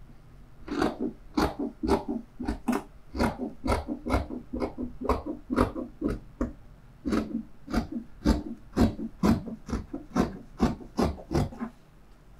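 Scissors snipping through fabric, one cut after another at about three a second, with a short pause about halfway through.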